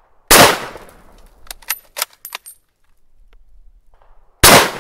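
Two single-shot shotgun blasts, about four seconds apart, each with a short fading echo, and a few sharp metallic clicks in between.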